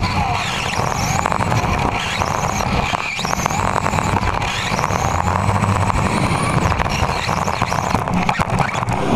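Electric RC touring car's motor and geared drivetrain whining, the pitch rising and falling again and again with the throttle, over a constant rattle and rumble from the chassis and tyres on carpet, picked up by a camera mounted on the car.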